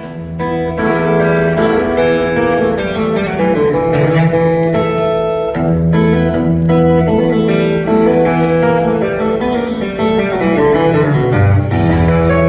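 Live country band playing an instrumental intro, led by strummed acoustic guitar over low bass notes, with no singing yet.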